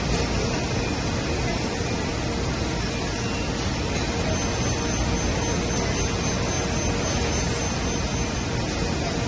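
Steady rushing machinery noise with a faint low hum, and a thin high whine from about four to eight seconds in.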